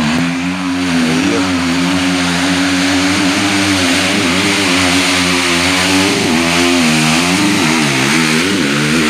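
Dirt bike engine running loud at high revs, held fairly even at first. From about six seconds in, the rider repeatedly revs it up and down, working hard to push through deep mud.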